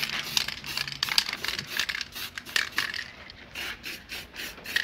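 Aerosol spray-paint can in use, a quick run of short sharp bursts.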